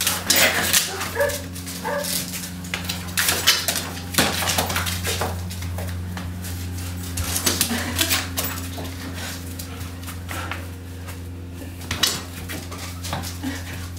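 Siberian husky whining and giving short barks, among irregular sharp knocks and clatter, over a steady low hum.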